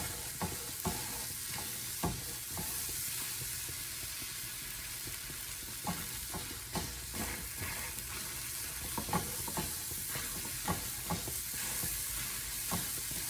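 Metal spoon scraping and clicking against a small steel frying pan as it presses down frozen tapioca dough, over a steady sizzling hiss from the hot pan. The clicks come irregularly, sparser in the first half.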